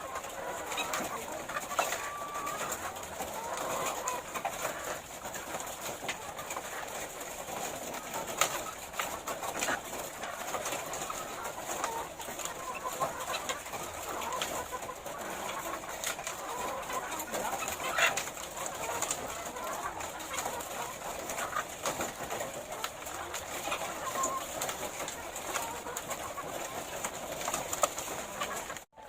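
A flock of laying hens clucking and crooning continuously, with scattered sharp clicks and taps and a steady high-pitched hiss underneath.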